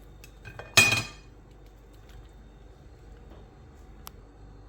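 A kitchen utensil clattering against a dish once, about a second in, with a brief ringing tone, and a few small clinks and taps around it.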